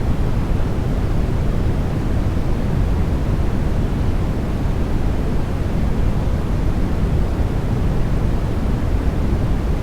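Steady sleep-aid noise, a constant even rush with most of its weight in the low range and no changes.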